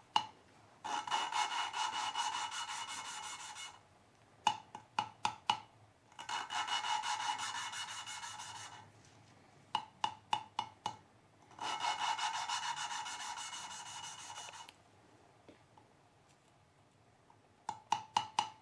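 A valve being hand-lapped into its seat in a 2001 Dodge Neon cylinder head: the suction-cup lapping stick is spun back and forth, grinding the valve face against the seat through lapping compound with a gritty rasp, in three spells of about three seconds. After each spell comes a quick run of four or five sharp taps as the valve is knocked on the seat to redistribute the compound. The grinding turns smoother as the two surfaces mate.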